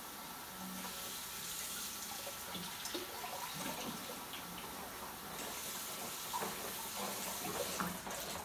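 Water running from a tap into a sink while a baby bottle is rinsed and washed, with a few light knocks of the bottle being handled.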